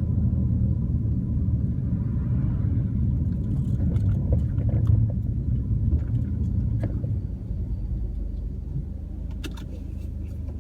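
Car driving, with a steady low rumble from the road and running gear that eases off in the last few seconds. A few short sharp knocks come through from about three and a half seconds in, typical of the clonk from the car's suspension.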